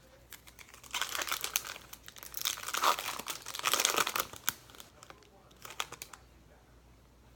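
Foil wrapper of a Topps Chrome trading card pack crinkling and tearing as it is ripped open, in a run of crackles lasting about three and a half seconds, then a brief rustle of wrapper and cards a little later.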